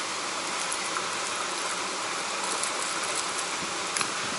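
Steady hiss of running water. A few light clicks come from a lure being handled at a plastic tackle box, the clearest one near the end.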